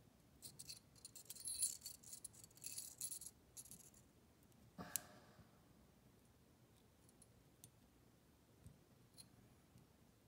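Small metal parts clinking and rattling for about three seconds as fine wire, a brass fitting and a hook are handled with needle-nose pliers, then one sharper click about five seconds in, followed by a few faint ticks.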